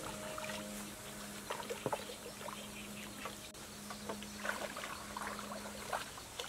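Long wooden paddle dipping and pulling through still water from a small wooden canoe, with light splashes and water trickling off the blade, heaviest near the start and again just past the middle.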